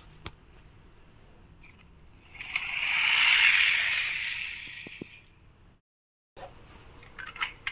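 Die-cast toy police car rolling across a hard surface, its small wheels rattling. The sound swells and fades over about three seconds, and a few faint clicks follow near the end.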